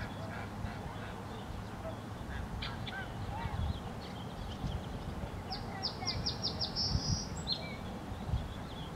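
Birds calling around a pond: scattered short chirps and calls, a rapid run of high notes a little past the middle, and honking from Canada geese, over a low steady rumble.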